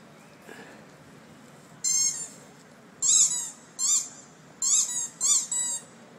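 A dog whining in short, high-pitched cries that rise and fall in pitch, five or so in a row, each under half a second long.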